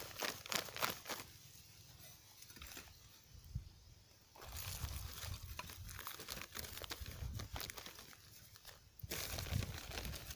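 Thin black plastic nursery bags of soil crinkling and rustling under the hands in irregular bursts, loudest about nine seconds in.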